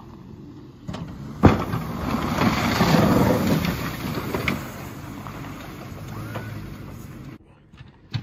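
Pickup truck with a front snow plow pushing snow: a sharp knock about a second and a half in, then engine and the rushing scrape of snow off the blade, loudest about three seconds in and easing off, before it drops away suddenly near the end.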